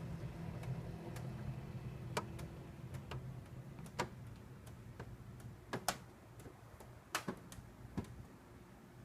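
Air conditioner (model AF-TS151WLH) with a low hum slowly dying away, overlaid by scattered sharp clicks and ticks from the unit, a few seconds apart and irregular.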